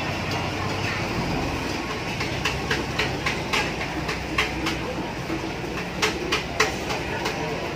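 Steady street-stall background noise with an irregular string of sharp clinks, metal utensils striking metal, from about two and a half seconds in to near the end.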